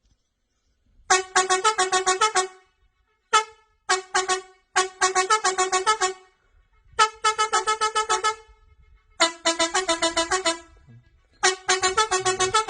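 Four-trumpet musical air horn playing short melody phrases: quick runs of clipped notes, several in a row with short pauses between them.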